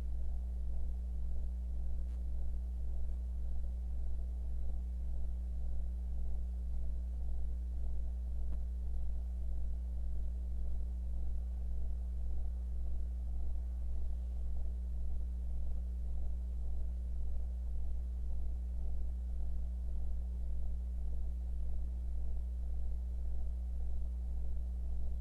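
Steady low electrical hum with a faint hiss, no other sound: the hum of an old film soundtrack transfer, pulsing gently in level.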